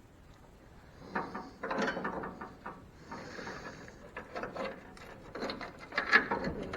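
Bursts of scraping, clicking and knocking from parts and tools being handled, with a short hiss about three seconds in.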